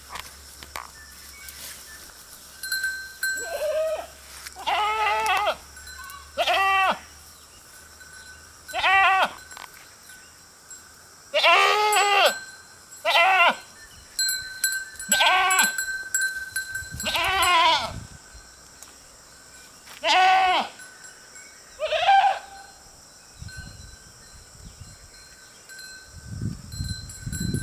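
Goats bleating: about ten separate quavering bleats, some with pauses of a few seconds between them. A low rumble comes near the end.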